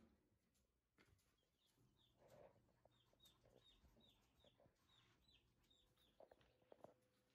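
Faint peeping of day-old Jersey Giant and Leghorn chicks: a run of short, high, falling peeps, about three a second, starting about a second and a half in and stopping about six seconds in.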